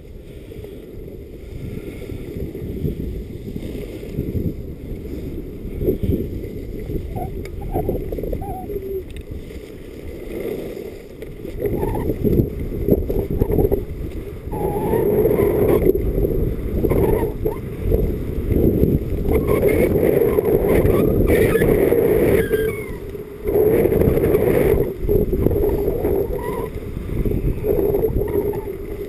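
Wind buffeting a body-worn camera's microphone and skis sliding and scraping over groomed snow during a downhill run. The noise swells and stays louder from about twelve seconds in as speed builds.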